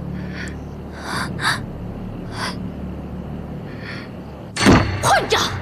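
A woman's short, shaky breaths and sniffs as she holds back tears, four of them over a low steady hum, then a sudden louder gasp near the end.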